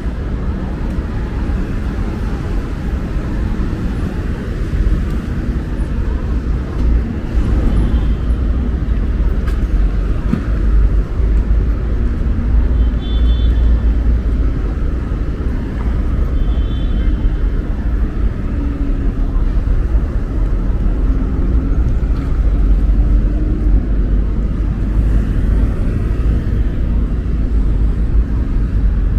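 City street traffic: cars passing with a steady low rumble and tyre noise, mixed with faint voices of passers-by. Twice near the middle a short high chirp cuts through.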